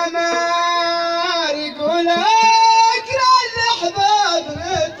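A solo singer's high voice, amplified through a microphone, singing a slow melodic line of long held notes with wavering ornamented turns between them, in the manner of Amazigh ahwach singing.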